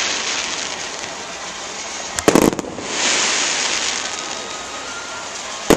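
Aerial fireworks bursting: a quick cluster of loud bangs about two seconds in, then a long hiss as the shells burn out, and another sharp bang at the very end.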